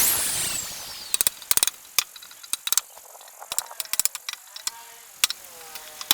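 A power drill's whine falls away in the first second. Then come a series of scattered sharp clicks and light knocks as the door lock's parts are handled and fitted into the wood.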